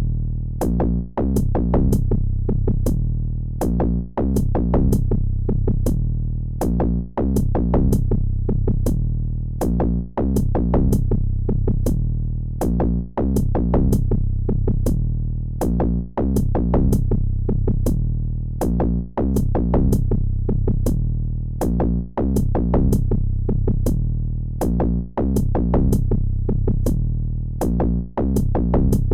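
Electronic background music with a steady drum-machine beat over deep synthesizer bass, repeating a short phrase about every three seconds.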